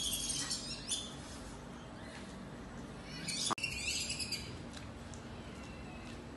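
Small birds chirping in quick high notes, in two spells, one at the start and one around halfway, with a single sharp click in the middle of the second spell.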